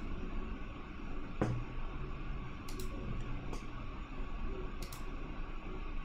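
A few sharp computer mouse clicks, some in quick pairs, over a steady low hum of room and computer noise.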